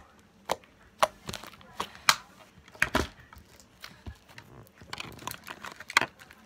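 Foam bead slime being kneaded and squeezed by hand, giving irregular sharp pops and clicks as air pockets burst and the beads are pressed together.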